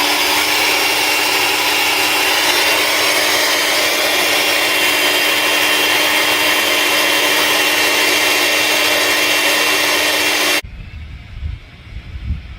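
Small Ryobi leaf blower running at full speed, blowing air through a dryer vent duct: a steady loud whoosh with a constant hum. It spins up at the start and cuts off abruptly about ten and a half seconds in.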